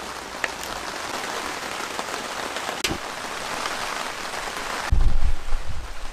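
Heavy rain falling steadily, an even hiss with a light knife click on the chopping board about half a second in. About five seconds in it gives way abruptly to louder low thuds and rumbling.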